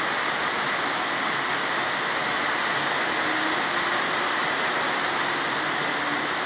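Steady, even rushing noise with no separate events in it.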